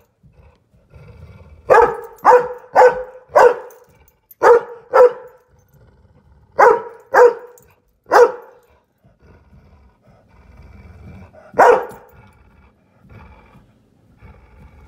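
A large dog barking in short groups of sharp, loud barks: four in quick succession about two seconds in, then two, then three, and a single bark near the end.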